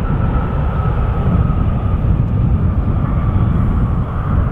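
Jet engines of a Ryanair Boeing 737 running at high power as it rolls down the runway: a steady, heavy rumble with a faint high whine that falls slightly in pitch as the aircraft moves away.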